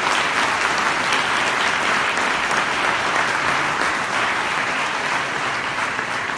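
Audience applauding: a dense, steady clapping that eases slightly near the end.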